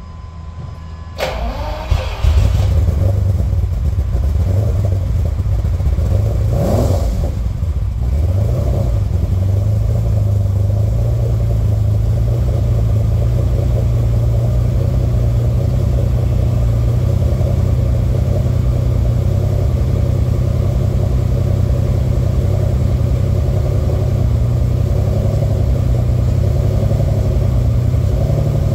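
Lamborghini Countach 5000 Quattrovalvole V12 starting up, heard from behind its quad exhaust tips. It catches about a second in, revs up and back down once around seven seconds in, then settles into a steady idle.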